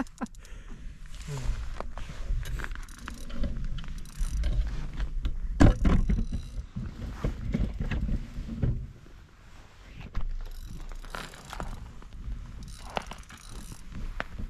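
Ice fishing reel being cranked to bring up a fighting fish, its gears and mechanism clicking and rattling irregularly over a low rumble.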